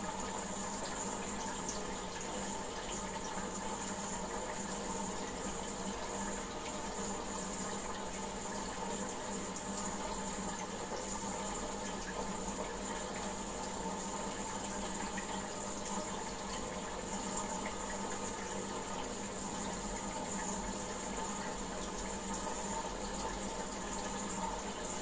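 Aquarium filter running: a steady stream of water splashing and trickling into the goldfish tank, with a steady hum underneath.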